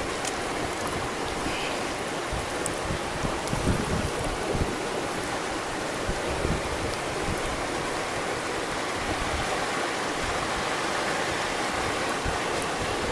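River water rushing steadily, with a few dull low bumps in the first half.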